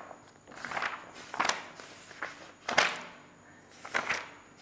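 Pages of a paper book being leafed through: four short rustling swishes about a second apart.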